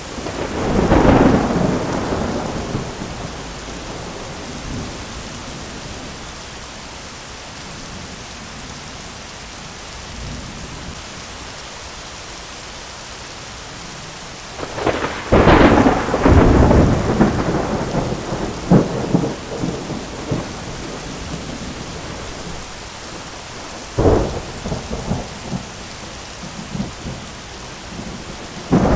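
Thunderstorm: steady rain hiss with thunder. One rumble comes about a second in, a loud crack and long rolling rumble about halfway through, and a sharper clap with a shorter roll a few seconds later.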